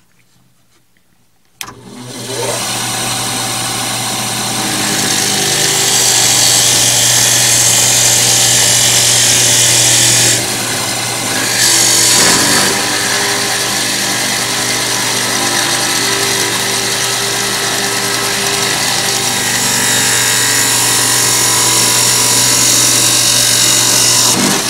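Benchtop drill press starting up about two seconds in and running steadily, its Forstner bit boring a flat-bottomed hole into a wooden ring blank, with a constant motor hum under loud hissing cutting noise. The cutting noise eases for about a second near the middle, then carries on until the press shuts off at the very end.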